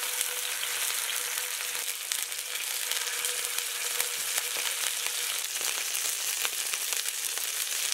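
Northern pike fillets frying in hot lard in a cast iron skillet: a steady sizzle dotted with fine crackles and pops.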